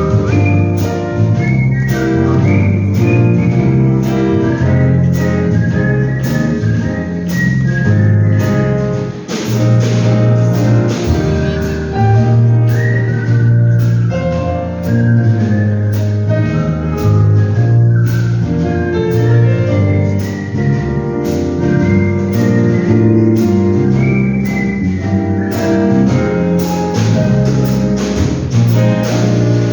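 Artistic whistling: a whistled melody with sliding notes, played over an instrumental accompaniment with a bass line and a steady beat.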